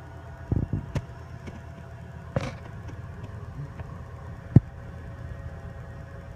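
A steady low hum, broken by a few short pops and knocks: a small cluster about half a second in, one about two and a half seconds in, and a sharper knock about four and a half seconds in.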